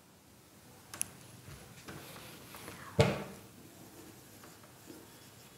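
Marker pen writing on a whiteboard: faint scratching strokes, with a small click about a second in and a sharper knock about three seconds in.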